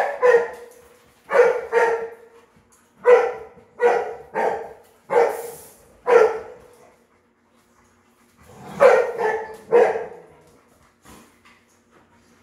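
Dog barking repeatedly, in short runs of two or three barks with pauses between, about a dozen barks in all; a last, faint bark comes near the end.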